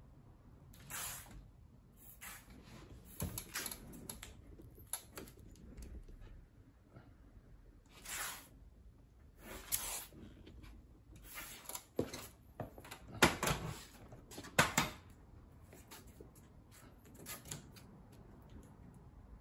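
Masking tape pulled off the roll in short, irregular rips and pressed along the edges of a glass pane in a steel door, masking it off before caulking. The loudest rips come in a quick cluster about two-thirds of the way through.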